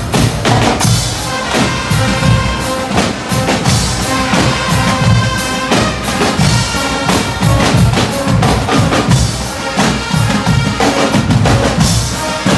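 A Guggenmusik carnival band playing on the march: snare and bass drums beating a steady fast rhythm under loud brass holding long notes.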